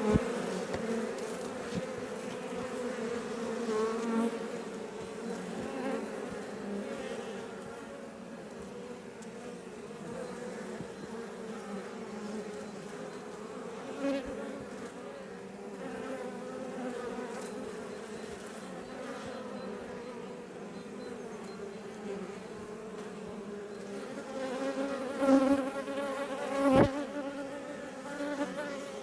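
Iberian honey bees buzzing in numbers around their hive: a steady, even hum, swelling now and then as single bees fly close past, most of all near the end.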